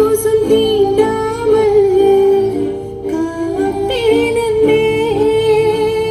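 Background music: a slow melody of long held notes that slide between pitches, carried by a voice without words, over a steady low backing.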